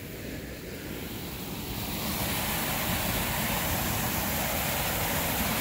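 Creek water rushing steadily, growing louder over the first couple of seconds and then holding even.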